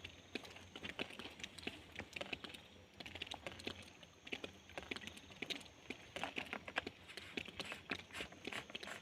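Rain, with many irregular drops tapping sharply on a hard surface.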